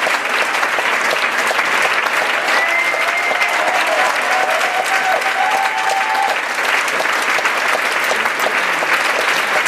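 Large theatre audience applauding: dense, steady clapping.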